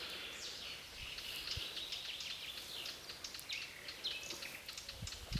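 Several birds chirping and singing, a dense run of short, high, quick calls. There are a couple of soft low thumps.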